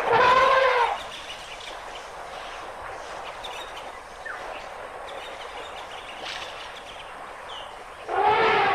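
African elephant trumpeting: a loud, bending call about a second long at the start, a quieter outdoor background, then a second, longer trumpet beginning near the end.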